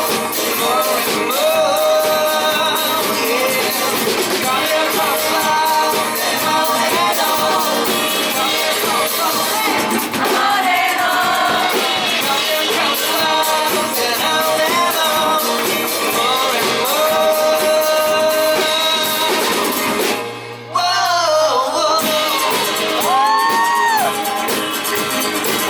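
Indie rock band playing live in an unplugged acoustic set, with a lead singer's voice over guitar, bass and drums. The music drops out for a moment about twenty seconds in, then the singing comes back.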